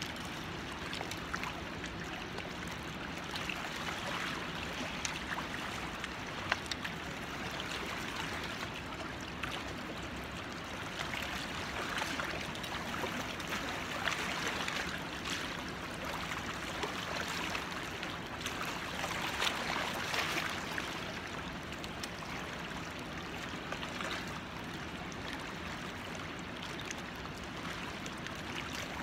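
River water washing and lapping against a rocky bank: a steady wash that swells a little now and then.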